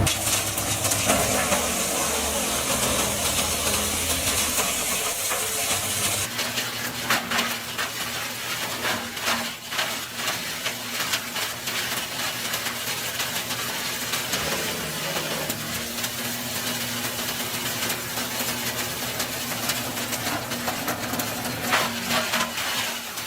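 Wood chipper running: a steady engine hum under a loud hiss, with scattered sharp cracks throughout. The hiss thins out about six seconds in.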